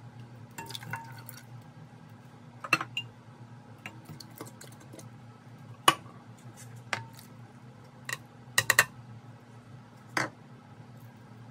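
Ingredients being tipped into a ceramic-coated cooking pot: canned beans and tomatoes with their liquid, then sliced carrots from a bowl. Sharp clinks and knocks of cans and the bowl against the pot come every second or two, with a quick cluster of them about two-thirds of the way through, over a steady low hum.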